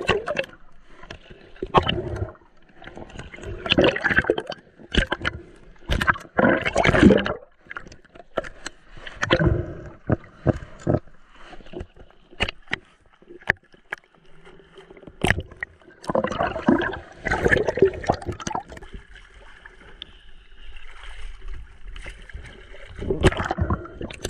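Seawater sloshing and gurgling around a camera dipped just under the surface, in irregular surges with many sharp knocks and clicks, over a faint steady hum.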